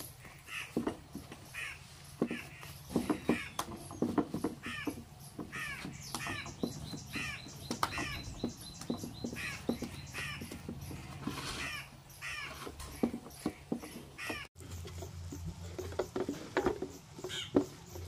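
A bird calling over and over in short, falling notes, about two a second, mixed with sharp crunching clicks of someone biting and chewing patyud.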